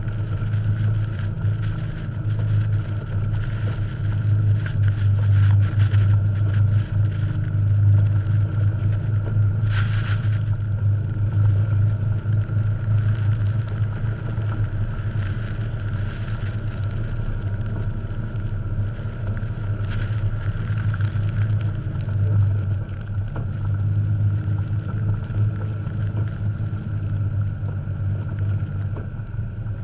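1989 Jeep Cherokee XJ's engine running steadily under load while driving through deep fresh snow, its drone swelling and easing. There is a single sharp knock about ten seconds in.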